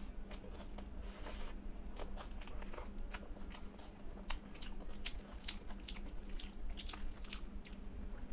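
Close-up chewing of a mouthful of rice and mashed okra: irregular wet smacks and clicks of the mouth, with soft squelches from fingers mixing rice on the plate.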